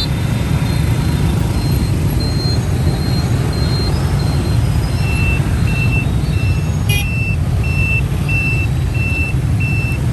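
Dense motorbike and car traffic at a street intersection, running as a steady low rumble. Over it an electronic vehicle beeper repeats about one and a half times a second: a higher beep through the first few seconds, then a lower one from about halfway on. A short sharp click comes about seven seconds in.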